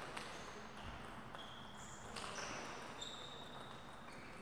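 Table tennis ball clicking a few times on the table and bats, mixed with several short high squeaks in a large hall.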